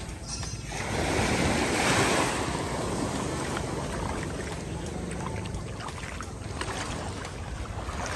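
Sea waves washing onto a beach, the surf swelling about a second in and then holding as a steady wash.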